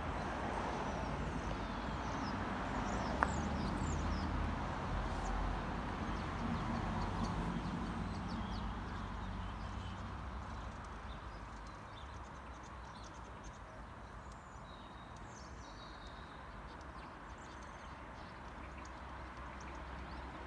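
Outdoor ambience: a low rumble of distant road traffic that eases off about halfway, with small birds chirping faintly and one sharp click about three seconds in.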